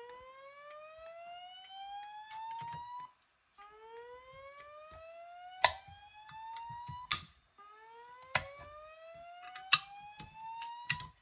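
Fire alarm speaker strobes sounding the slow whoop alert tone of a voice evacuation system, the signal between repeats of the evacuation message. It sounds as three rising sweeps of about three and a half seconds each, with short gaps between them, and sharp clicks a little over a second apart.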